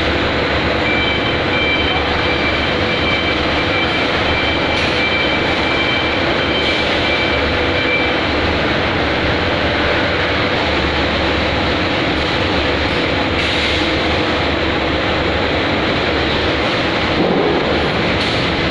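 Steady, loud machinery noise of a factory production line, an even rushing din with no let-up. Faint high whines run for several seconds near the start.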